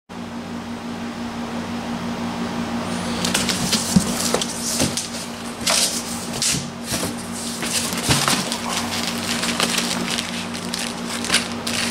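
Cardboard box being opened by hand: flaps pulled back and plastic-bagged manuals lifted from the foam packing, giving irregular crinkling, rustling and scraping noises from about three seconds in. A steady low hum runs underneath.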